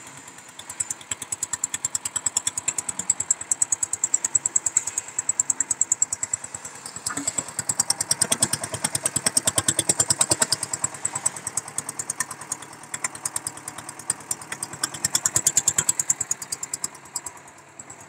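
Green stationary single-cylinder diesel engine of a new concrete mixer running, with fast, evenly spaced beats; it dies away shortly before the end.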